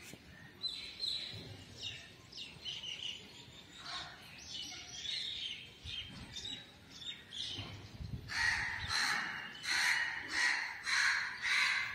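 Small birds chirping on and off, then from about eight seconds in a crow cawing over and over, about two caws a second.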